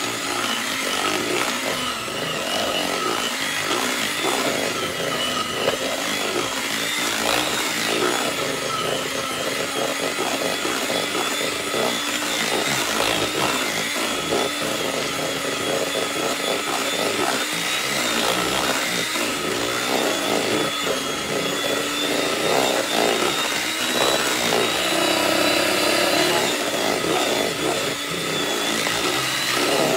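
Electric hand mixer running steadily, its beaters creaming softened butter and cream cheese and rattling against the plastic bowl.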